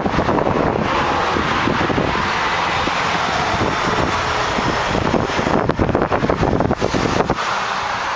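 Wind buffeting the microphone over a steady rush of highway traffic. The gusts are stronger a little past halfway and ease off near the end.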